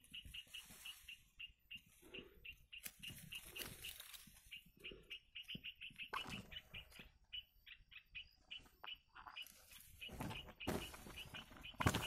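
Red-vented bulbul nestlings begging with a steady run of short, high chirps, about four a second. Leaves rustle and brush several times, loudest near the end.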